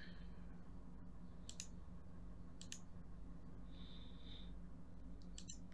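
Three computer mouse clicks, each a quick press-and-release pair, spaced about a second or more apart, over a steady faint low electrical hum. A short faint high tone sounds about four seconds in.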